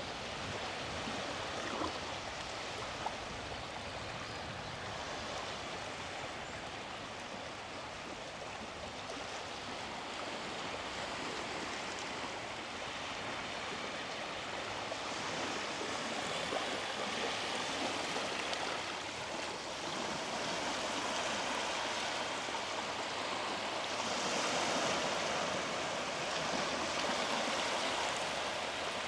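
Sea waves washing onto the beach: a steady rush that swells louder about 24 seconds in.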